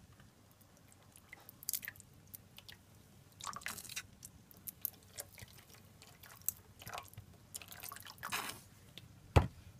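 Ketchup being put onto a spoon over a pot of sauce: scattered soft, wet squelches and drips, with one sharp click near the end.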